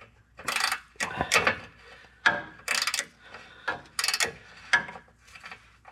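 Ratchet wrench on a slotted oxygen-sensor socket clicking in short, uneven bursts as it is swung back and forth on an O2 sensor.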